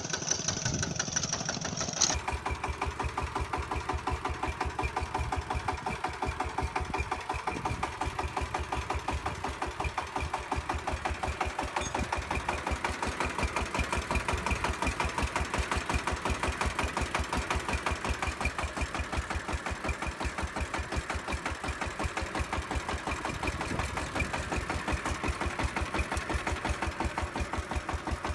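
Small model engine on a homemade RC tractor running steadily with an even chugging beat. A high whine stops abruptly about two seconds in.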